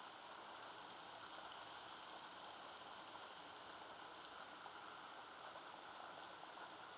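Near silence: a faint, steady hiss of outdoor ambience with no distinct events.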